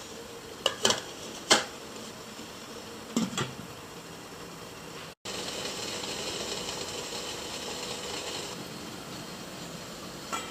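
A few sharp metal clinks from a stainless steamer pot and its lid, then, after a brief cut, the steady hiss of a portable gas stove's burner on a medium flame under the steamer. Another single clink near the end.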